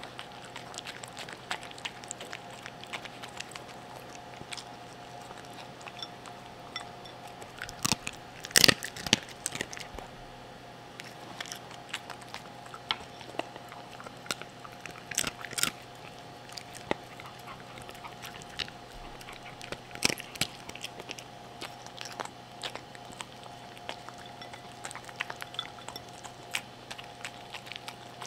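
A cream poodle eating soft, wet food from a bowl right at the microphone: irregular chewing, lip-smacking and lapping clicks, with a louder flurry about eight seconds in and more around fifteen and twenty seconds.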